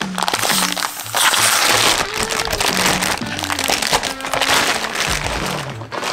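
Plastic vacuum bag rustling and crinkling as it is handled around a wooden panel, over background music with a slow melody.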